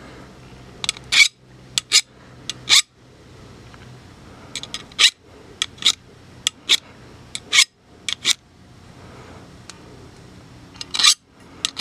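Hand file scraping along the steel blade of a root pruning shear in short, irregular strokes, sharpening the cutting edge. There is a lull of a couple of seconds before the last two strokes.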